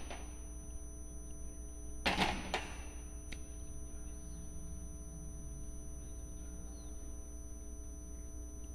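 Steady electrical mains hum, with a felt-tip marker writing on a whiteboard; a brief louder scrape comes about two seconds in, then a click.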